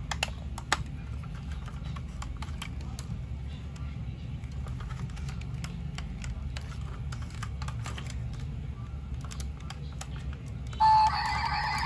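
Small clicks and taps of a die-cast model car's parts and body as it is handled and turned in the hand, over a steady low hum. About a second before the end, a loud electronic tone with a steady pitch cuts in.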